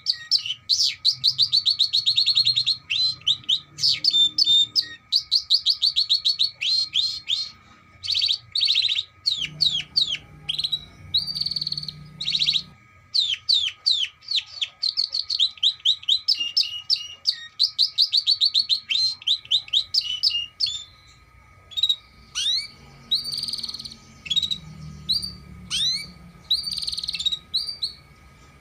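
Domestic canary singing: long runs of fast, high trills and rolls broken by short pauses, the phrases growing sparser in the last third.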